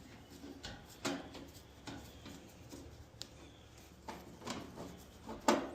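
Light clicks and taps of screws and a screwdriver being handled against a dryer's metal cabinet: half a dozen separate knocks, the loudest near the end.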